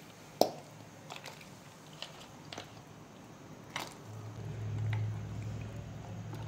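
Pieces of mutton trotter dropped by hand into a pot of boiling water, a few separate splashes and knocks, the first one loudest, followed by a metal ladle stirring. A low steady hum comes in about four seconds in.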